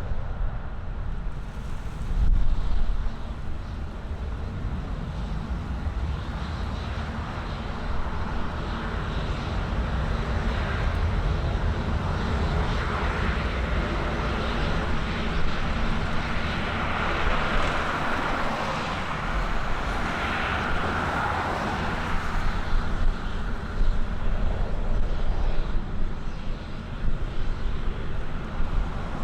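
A passing airplane's engine noise swells to a peak about two-thirds of the way through, then fades, over a constant low rumble of strong wind buffeting the microphone.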